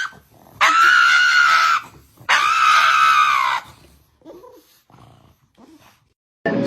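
An animal giving two long, high screaming calls, each held for about a second with a short gap between, followed by a few faint short sounds.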